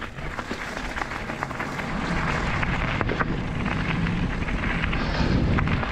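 Riding noise of an electric mountain bike climbing a trail, picked up by an action camera: a steady rumbling noise that grows a little louder about two seconds in.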